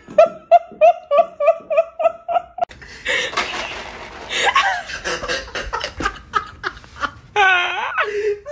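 A person laughing hard: a quick run of high-pitched 'ha-ha' bursts, about five a second, then breathier laughter.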